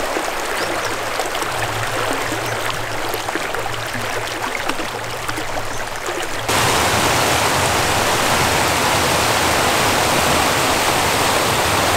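Shallow stream rushing over rocks. About halfway through it switches suddenly to a louder, steadier rush of water pouring over a low weir.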